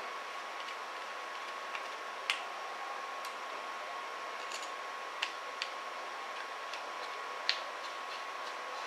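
Scattered small clicks of a screwdriver and metal parts as a graphics card's cooler is screwed back together, a few sharp ones standing out, over a steady hiss with a faint steady high tone.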